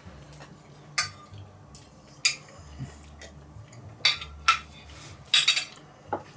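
Cutlery clinking and scraping against a plate while eating: about six sharp, irregularly spaced clinks, the loudest cluster about five seconds in.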